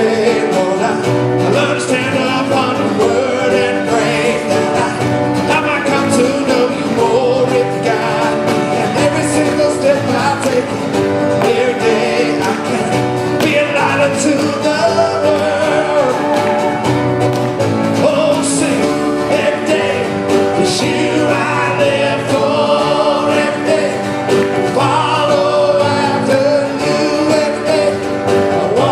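Live worship band playing a song: singers over drum kit, guitar and keyboard, with a steady beat.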